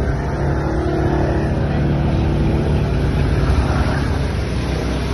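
Motor scooter's engine running steadily at low speed, a continuous hum, over the hiss of the wet, flooded road under the tyres.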